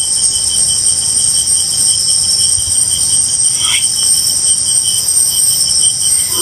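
Crickets and other night insects chirping steadily over a constant hiss of static from a spirit box radio scanner. About three and a half seconds in, a brief garbled fragment sweeps down through the static, and the caption reads it as the word "mãe" ("mother").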